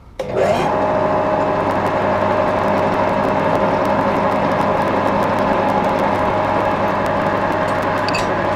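Edgwick Mk1 lathe starting up: the motor and spindle spin up with a brief rising whine in the first second. It then runs steadily with a constant hum and gear whine.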